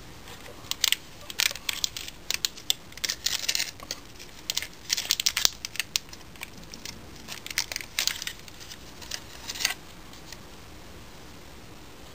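Foil pouch of a Cyalume SnapLight lightstick being torn open and crinkled by hand: a run of irregular sharp crackles and rustles that stops near the end.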